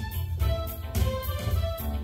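Yamaha PSR-770 arranger keyboard being played: a melody over a bass and drum backing with a steady beat about twice a second.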